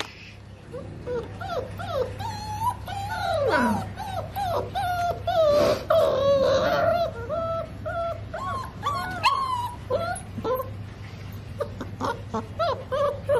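Pakistani bully puppies whimpering and whining: a string of short, wavering whines, with a long falling whine about three and a half seconds in and a louder drawn-out one near the middle.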